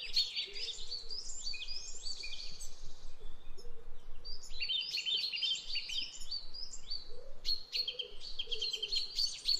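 Several songbirds chirping and singing together: rapid runs of high, sliding notes in bursts with short lulls, over a fainter, lower wavering call.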